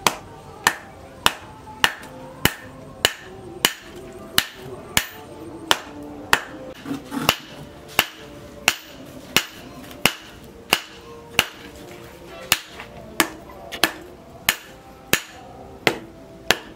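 Hand hammer forging a red-hot knife blade, cut from a tractor plough disc, on a round steel anvil post. The blows are steady and even, about three every two seconds, and each one is a sharp ringing clang.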